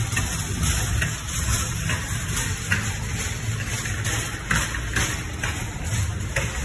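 Wind rushing and buffeting over a handheld phone's microphone outdoors, a steady low rumble with hiss, with a few faint scattered footfalls on pavement.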